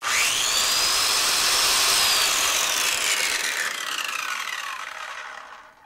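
Electric drill with a bad bearing running with a harsh, grinding whine: it spins up at once, the whine rising, then about two seconds in it starts to wind down, the pitch falling and the sound fading out near the end. The rough grinding is the sign of the worn bearing.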